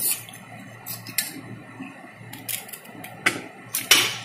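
Scattered sharp clicks and knocks, the loudest near the end, from pointed gourds and a knife being handled against a steel bowl and plate, over a faint steady low hum.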